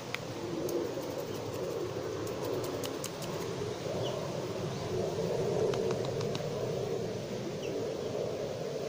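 Outdoor ambience: a steady low hum with a few short, faint bird chirps now and then, and scattered light ticks.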